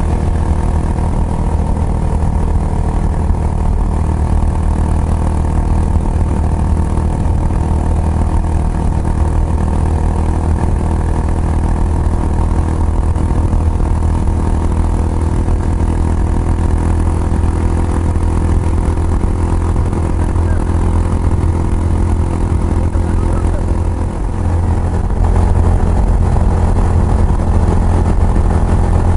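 Kawasaki Estrella's single-cylinder engine running steadily through an aftermarket Yamato muffler, with a deep exhaust note. It dips briefly near the end, then comes back slightly louder.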